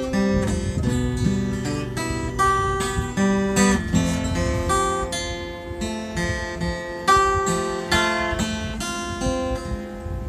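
Acoustic guitar played alone: chords picked and strummed one after another, each left to ring.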